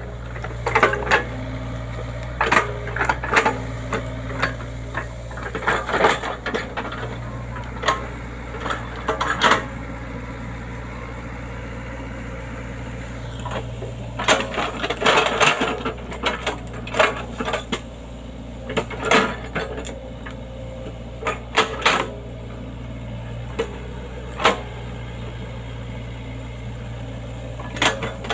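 Excavator running with a steady low engine hum, overlaid by frequent irregular metallic clanks and rattles as it works.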